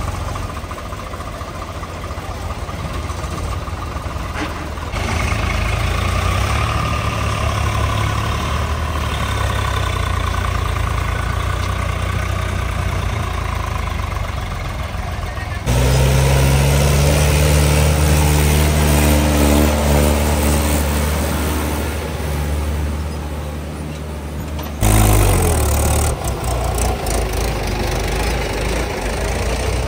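Heavy diesel engines running steadily, in several joined clips: the engine sound changes abruptly twice, the middle stretch a deeper, steadier drone and the loudest moment a short burst right after the second change.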